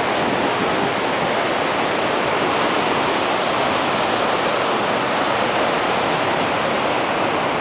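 Horseshoe Falls at Niagara Falls: a steady, unbroken rush of falling water heard close to the brink.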